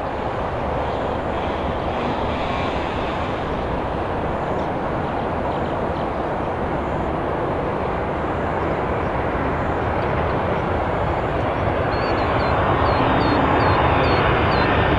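Twin-engine Boeing 767 freighter on final approach, its jet engines heard as a steady rushing drone that slowly grows louder as the plane nears.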